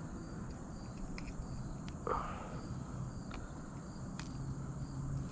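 Steady high-pitched chorus of crickets and other insects, with a few faint clicks and a short rustle about two seconds in.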